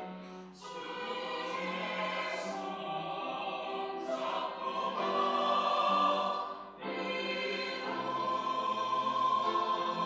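Mixed church choir of women's and men's voices singing held chords, with two brief breaks between phrases, about half a second in and near seven seconds.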